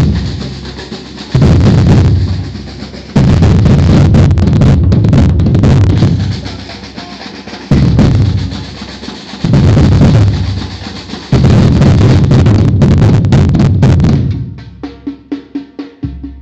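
A batucada drum ensemble plays loud bass drums and snare drums in several passages that each start abruptly and die away. Near the end the drumming fades out, leaving quieter, evenly spaced ticking.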